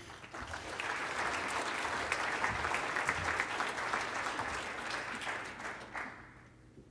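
Audience applauding: many hands clapping together, building over the first second and dying away about six seconds in.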